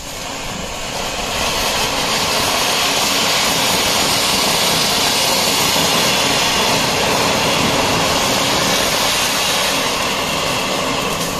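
Ground fountain fireworks (Diwali flower pots) spraying sparks, giving a loud, steady hiss that swells about a second in and holds, with several fountains burning at once for part of the time.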